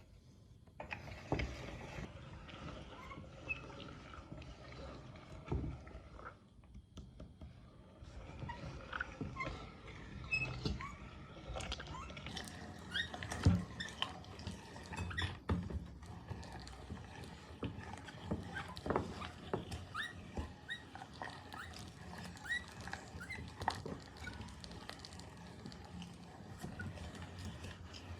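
Meat grinder working soft ice cream through, a continuous wet squelching with many small clicks and short squeaks that grows busier after about eight seconds.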